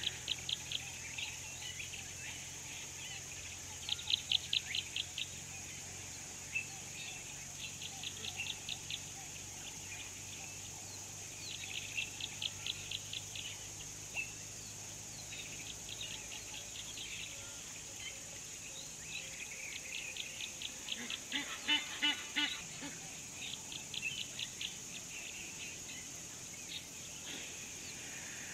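Birds calling in short bursts of rapid repeated notes, a burst about every four seconds, over a steady high-pitched insect drone. A louder, lower-pitched call comes about two-thirds of the way through.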